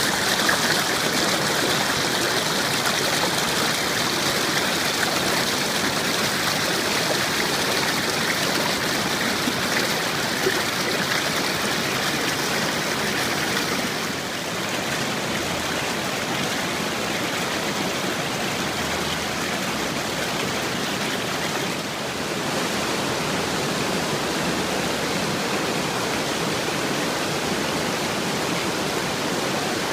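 Running water rushing steadily, the continuous hiss of a stream or small falls, with slight drops in level about 14 and 22 seconds in.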